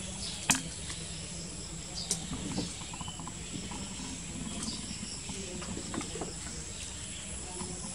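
Outdoor ambience with a steady high insect drone, a sharp click about half a second in, and a few light knocks and scuffles from kittens playing on a plastic chair.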